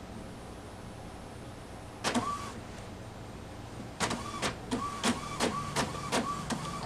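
Epson WorkForce WF-3640 inkjet printer feeding out a finished sheet: a single click with a brief whir about two seconds in, then a rapid run of clicks, about three a second, with a steady whine between them as the paper is pushed out onto the tray.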